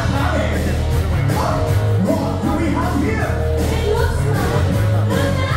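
Upbeat parade music with singing over a steady drum beat.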